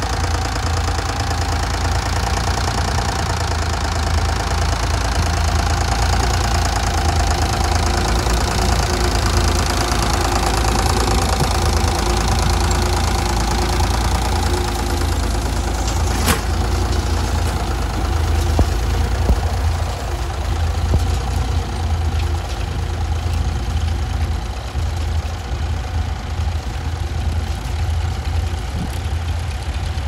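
Vintage tractor's engine running steadily under load as it pulls a mounted plough through stubble, with a single sharp click about sixteen seconds in.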